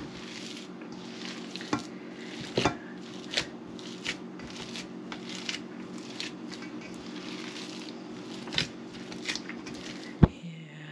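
Hands squishing and kneading boiled cassava mash in a stainless steel bowl, with irregular sharp clicks and knocks against the metal bowl. The loudest knock comes near the end.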